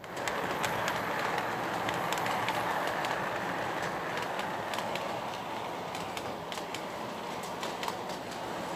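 Lionel Santa Fe O-gauge model freight train running on its track: a steady rolling rumble of metal wheels on rail, scattered with sharp clicks, that comes in suddenly and keeps going.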